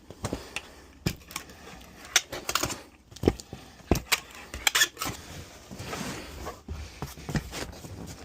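Cardboard box and packing paper being handled: scattered knocks and clicks, with a few short crinkling rustles.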